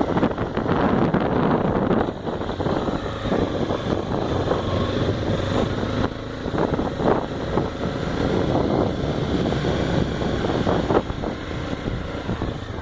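Honda XRE motorcycle running on the move, with heavy wind buffeting on the microphone.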